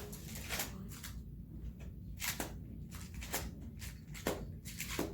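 Plastic magnetic building tiles clacking against one another as they are handled and counted out: a string of irregular sharp clicks.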